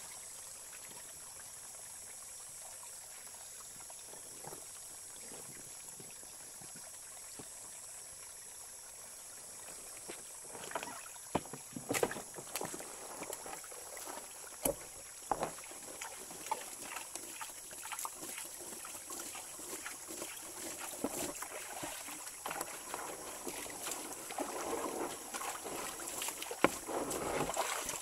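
Shallow rocky stream burbling steadily. From about ten seconds in, splashing and sloshing as soapy water is poured out of a washbasin into the stream and the basin is rinsed, with sharp slaps and knocks of water and basin, busiest near the end.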